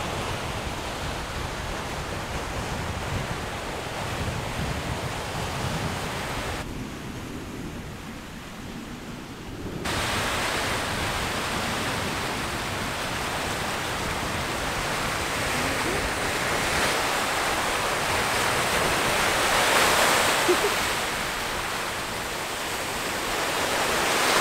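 Surf washing and breaking on a sandy shore, a steady hiss that swells as the waves come in, with wind rumbling on the microphone.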